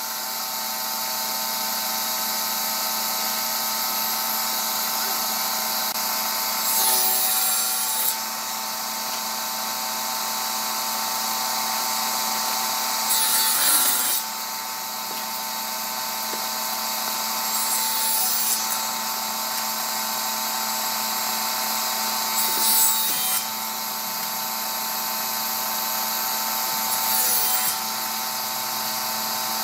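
An electric power tool's motor running steadily, with a louder rasping burst every four to five seconds as it works into wood.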